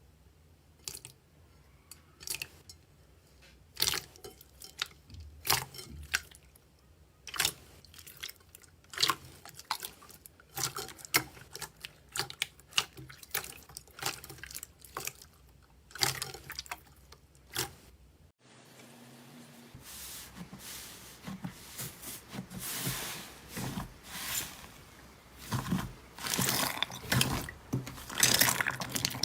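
Slime being squeezed and stretched by hand, making irregular wet, sticky pops and clicks. About 18 seconds in it gives way to denser, crinkly crackling that grows busier near the end.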